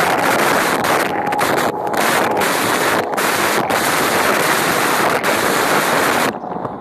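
Loud rushing of spray and water along a speeding motorboat's hull, mixed with wind buffeting the microphone. It breaks off for split seconds several times, then falls much quieter suddenly near the end.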